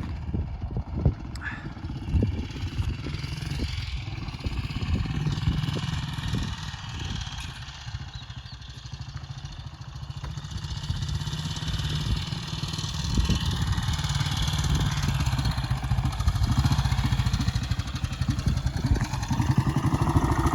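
1940 Ariel W/NG's 350 cc single-cylinder engine running with a steady low beat, quieter in the middle and louder again toward the end.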